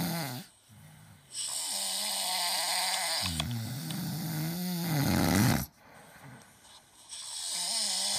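A person snoring loudly: one long snore of about four seconds, then another starting near the end.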